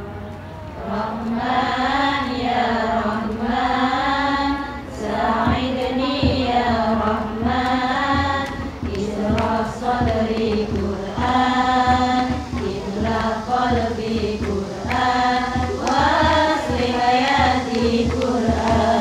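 Women's voices singing an Islamic devotional song (sholawat) together, with low hand-drum beats coming in after about five seconds and keeping a steady rhythm under the melody.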